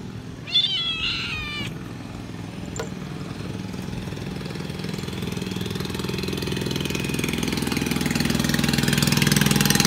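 A cat gives one short, wavering meow about half a second in. Then a motor engine runs with a fast, even pulse, growing steadily louder toward the end.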